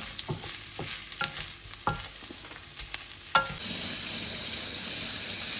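Sausage and garlic frying in oil in a pan, with a utensil clinking against the pan a few times. About three and a half seconds in, a sharp knock is followed by a louder, steady sizzle.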